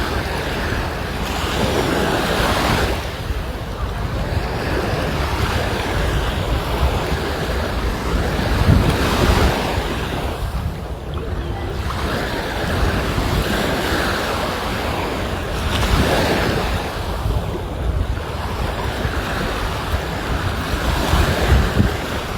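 Sea waves breaking and washing on the shore, swelling every several seconds, with wind rumbling on the microphone.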